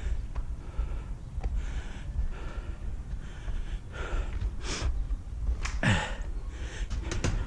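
A man breathing heavily, with a loud gasp about six seconds in, over a steady low rumble; a few sharp clicks follow near the end.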